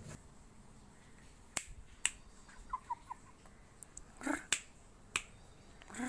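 A few sharp, separate clicks like finger snaps or tongue clicks, with a few faint short chirps around the middle and a brief louder call about four seconds in.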